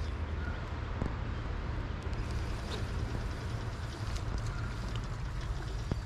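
Wind rumbling on the microphone over a steady hiss, with a few faint clicks.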